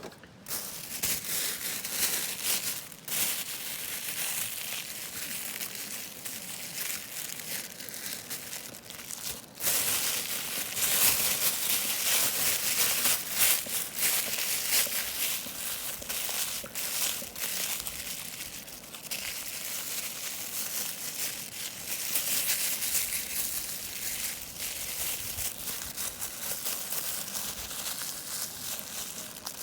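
Continuous crinkling and rustling with many small clicks, as of something being handled or crumpled, with a brief pause about ten seconds in.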